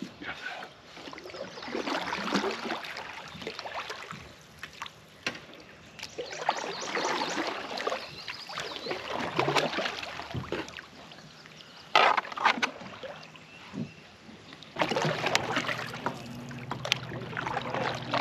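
Water splashing and sloshing around a kayak as it is paddled and moved, in several swells, with a sharp knock about twelve seconds in. For the last few seconds a steady low hum runs under the water sounds.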